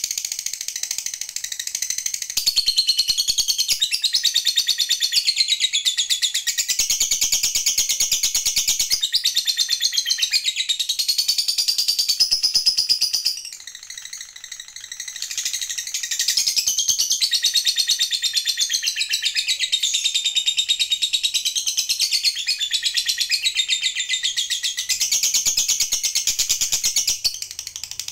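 A Fischer's lovebird singing a long, very fast, high-pitched chattering trill (ngekek). It comes in two long runs, broken by a quieter pause of a couple of seconds about halfway through.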